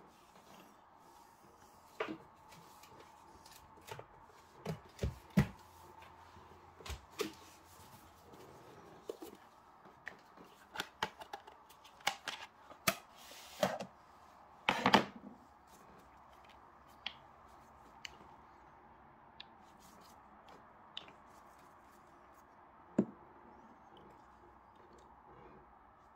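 Scattered light clicks and knocks over a faint steady hum, most of them bunched through the middle, with the loudest a short cluster a little past halfway.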